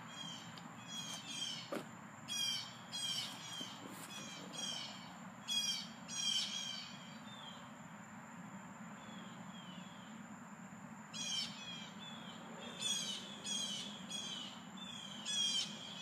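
Birds calling in repeated clusters of quick, high, downward-sliding chirps, with a lull of a few seconds in the middle, over a faint steady low background hum.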